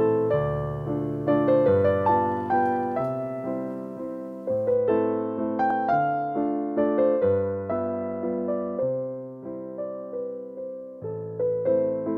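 Background music: slow, gentle solo piano, single notes and chords struck over held low bass notes, each note fading away after it is played.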